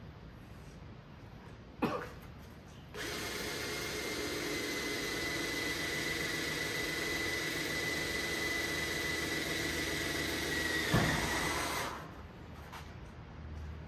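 Handheld electric power tool running with a steady high motor whine for about nine seconds. Its pitch drops sharply with a knock just before it switches off. A single click comes about two seconds in, before it starts.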